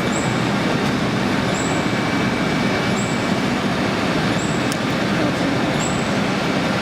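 Wood chipper running steadily: a loud, continuous mechanical din with a short high chirp repeating about every second and a half.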